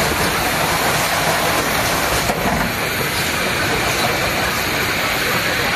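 Industrial production and packaging machinery running with a steady, even noise and hiss.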